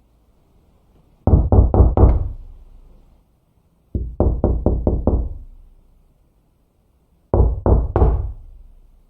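Knocking on a door in three rapid series: four knocks, then five or six, then three. Each series rings out and fades over about a second.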